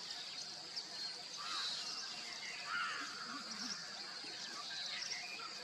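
Forest ambience: a steady high insect drone with scattered short bird chirps and calls.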